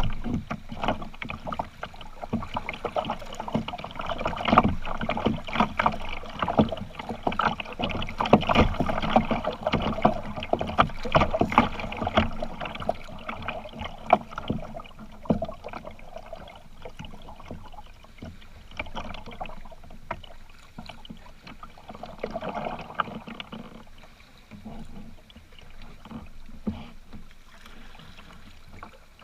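Kayak on the water: irregular splashes and knocks of paddling and water against the hull. Busiest in the first half, calmer after about fifteen seconds.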